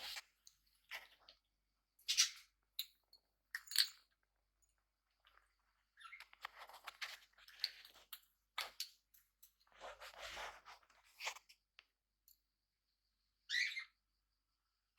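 Pet budgies and cockatiels making small sounds: scattered short, scratchy noises like chewing and pecking, and a brief chirp near the end.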